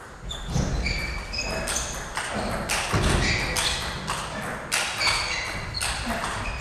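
Table tennis rally: the ball clicks sharply off rackets and table in quick alternation, with short bright pings. Low thuds of the players' footwork on the floor run under it.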